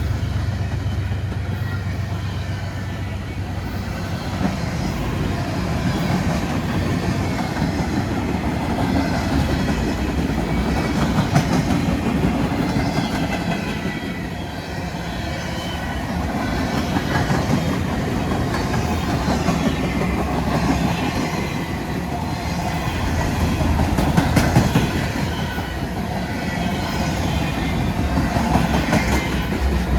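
Empty BNSF military train rolling past, its steel wheels clattering steadily over the rails.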